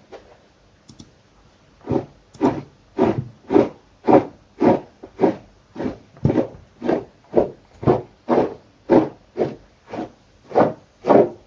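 Rhythmic rubbing strokes, about two a second, that start about two seconds in, after a couple of faint clicks.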